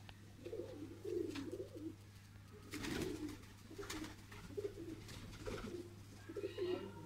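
Domestic pigeons cooing, a low warbling coo repeated again and again by several birds, with a few sharp claps in between.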